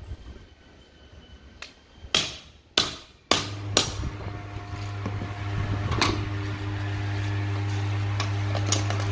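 A hammer strikes the back of a knife blade set in a wooden 45-degree miter guide, driving it through a rubber door-seal strip. There are four sharp blows about half a second apart between two and four seconds in, then a lighter one near six seconds. A steady low hum sets in alongside the blows.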